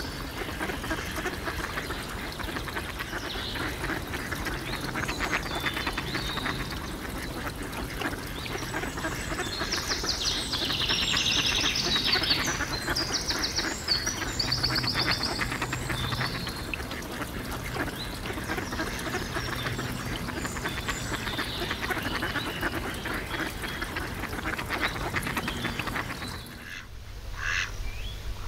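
A group of young mallard ducks quacking and calling while feeding, with a louder run of high, quick chirping calls about ten seconds in.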